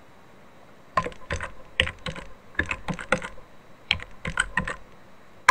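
Typing keystrokes: about a dozen sharp, unevenly spaced key clicks, then one louder stroke at the very end.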